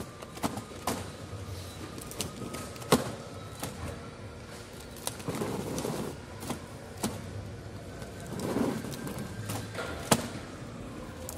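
Warehouse work sounds: irregular sharp knocks and clatter of goods and pallets, over a faint thin whine that drifts slowly in pitch.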